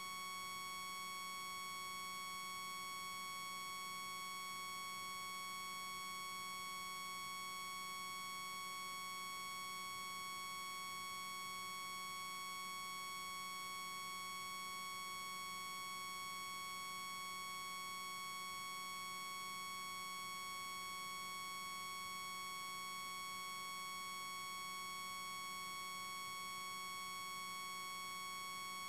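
Steady high-pitched electronic tone with a stack of overtones, unchanging in pitch and level: noise in the recording itself rather than anything in the scene.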